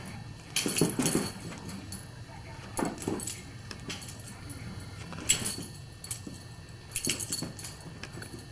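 A Great Dane moving about in quick dashes: four short bursts of clicking and jangling, about a second in, about three seconds in, a little past five seconds and near seven seconds.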